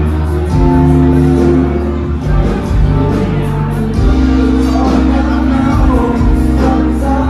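Loud music played over a sound system, with a heavy, steady bass line and a singing voice.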